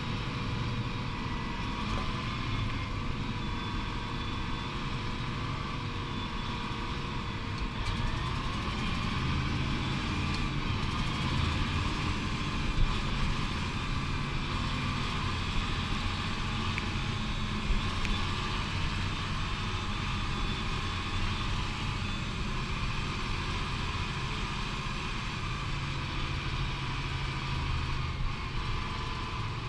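Tractor engine running steadily, heard from inside the cab, with a couple of light knocks partway through.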